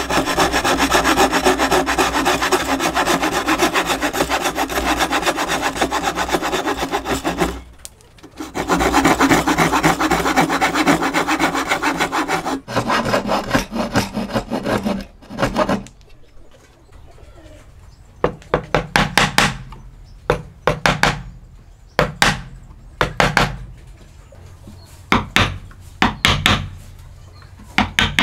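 Hand sawing into a wooden board with a narrow-bladed wooden frame saw: continuous rasping strokes, stopping briefly about 8 seconds in, then carrying on, cutting the waste between dovetail pins. From about halfway through, a mallet strikes a chisel in short clusters of sharp knocks, chopping out the dovetail waste.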